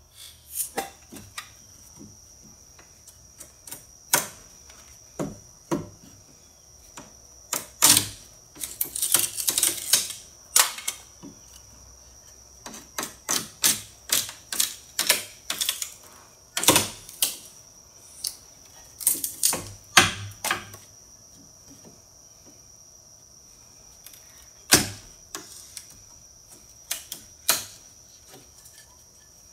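Homemade lever-action kindling splitter in use: a long steel blade levered down through thin strips of wood gives an irregular run of sharp cracks and clicks as the wood splits, bunched most thickly in the middle with a few louder single cracks near the end.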